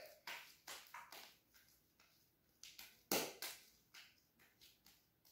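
Homemade toothpaste-and-shampoo slime being worked and kneaded between the hands: a series of faint, irregular short squelches and clicks, the loudest a little after three seconds in. The slime is being mixed by hand to finish it.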